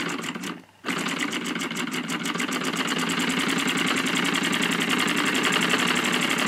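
Mohoo toy steam engine kit, a small two-cylinder V engine fed from an alcohol-fired boiler, starting about a second in and running at high speed with a rapid, even chuffing beat.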